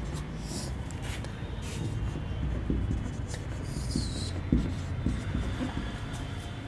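Marker pen writing on a whiteboard: a series of short scratching strokes, with a longer squeak about four seconds in, over a low steady background rumble.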